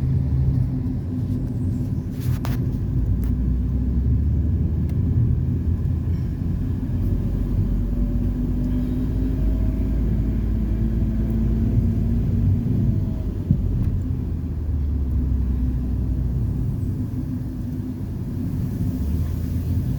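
Steady low vehicle rumble with faint, slowly drifting engine tones, and a single sharp click about two seconds in.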